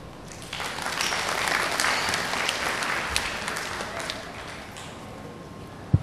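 Audience applauding: the clapping starts about half a second in, swells, then fades out over a few seconds. A single low thump near the end.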